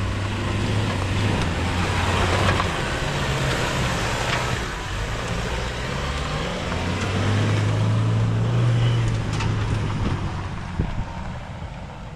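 Toyota Hilux pickup's engine running as it drives off, the engine note swelling about two-thirds of the way through and then fading as it pulls away, with a single knock near the end.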